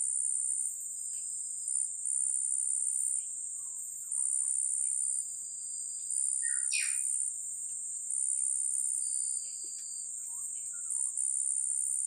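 A high, steady insect chorus that swells and eases every second or so, with a few thin bird whistles and a short bird chirp about seven seconds in.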